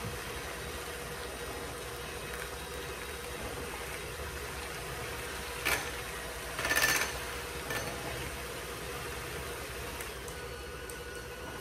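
Electric hand mixer running steadily in a bowl of egg mixture while hot milk is poured in, with a brief knock and then a short clatter near the middle.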